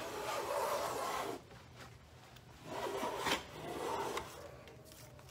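Metal bench hand plane taking shavings along the edge of a long wooden board: one long stroke in the first second and a half, then two shorter strokes around three and four seconds in.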